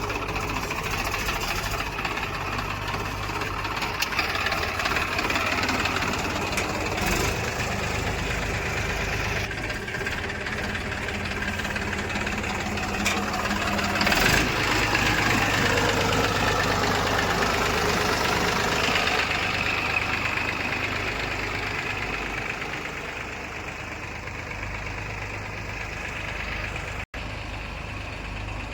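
Diesel engines of a backhoe loader and tractors running steadily. About halfway through the sound suddenly gets louder and stays up for several seconds, then gradually eases off.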